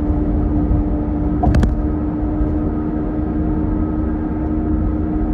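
Steady road noise and engine hum inside a moving car's cabin, with one short knock about a second and a half in.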